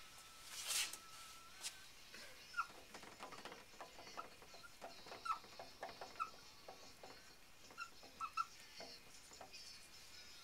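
Marker squeaking and scratching on a glossy board in short, irregular strokes as letters are written. There is a brief rustle about a second in.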